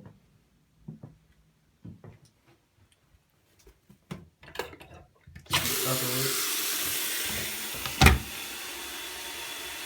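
Footsteps across the floor, then about halfway through a sink faucet is turned on and water runs steadily into the basin, with one sharp knock a couple of seconds after it starts.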